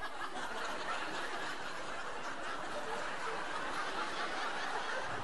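Theatre audience laughing together in a steady, dense wave.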